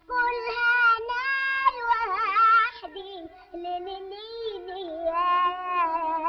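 Background song: a high singing voice holding long notes, wavering with vibrato on some of them.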